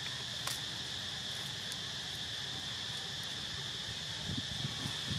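Steady insect chorus, a constant high trill, with a single sharp click about half a second in and some low rumbling near the end.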